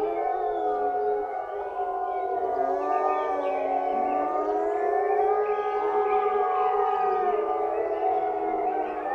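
A pack of gray wolves howling in chorus: several long howls overlapping at different pitches, some held steady while others glide up and down.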